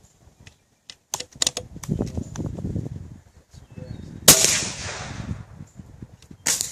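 A homemade .357-calibre air rifle fires once about four seconds in: a sharp report that trails off over about a second. Scattered clicks and knocks come before and after it.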